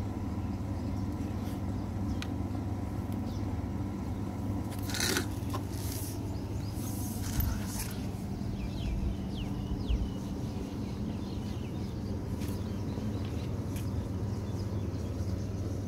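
A few short scrapes and rubs of PVC pipe and fittings being handled and pushed together during solvent-cement jointing, bunched around the middle. They sit over a steady low background hum.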